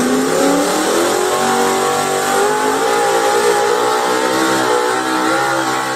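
Naturally aspirated two-wheel-drive Ford pulling truck running at full throttle while dragging a sled, its engine held at high revs with a nearly steady pitch that wavers slightly.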